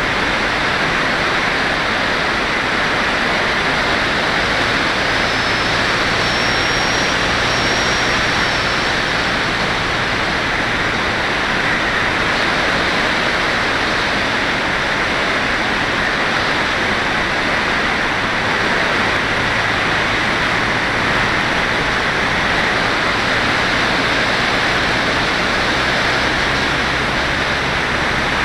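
Steady rushing wind noise from air flowing past a glider's onboard camera in flight, with a faint high whistle for a couple of seconds about six seconds in.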